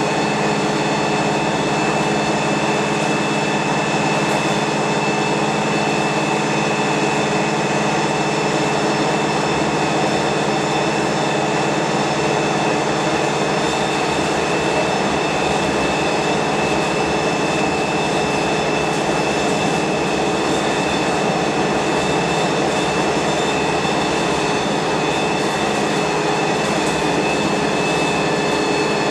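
Wright StreetLite single-deck bus heard from inside its saloon near the rear: engine and drivetrain running steadily, a constant hum with a steady whine above it.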